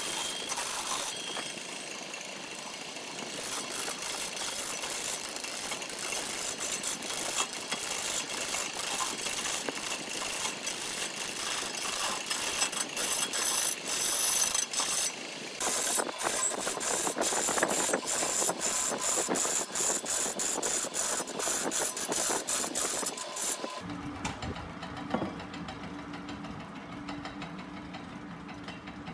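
Wood lathe turning a log while a gouge cuts into it: a loud, rapid clattering scrape of the tool on the spinning wood. Near the end it drops to a quieter, steadier hum from the lathe with lighter cutting.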